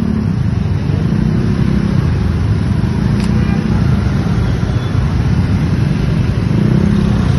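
Motorcycle and scooter engines running in a slow queue of traffic, a steady low engine hum.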